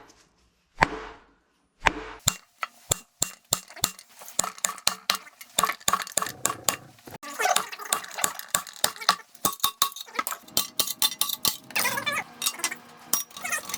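Metal parts and tools clinking and tapping against each other in many quick, sharp clicks, some with a short ring. The clicks get busier from about two seconds in.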